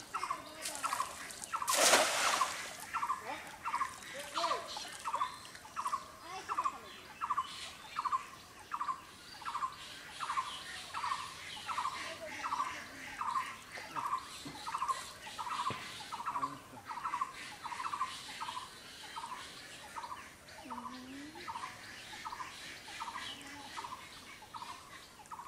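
A bird repeating one short note over and over, evenly, about one and a half times a second. About two seconds in there is a single loud splash, the cast net landing on the water.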